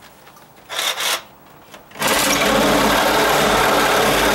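Ryobi cordless reciprocating saw, after a short burst about a second in, starting up at about two seconds and running steadily: a motor buzz whose sound the user takes as a sign that the battery is almost flat.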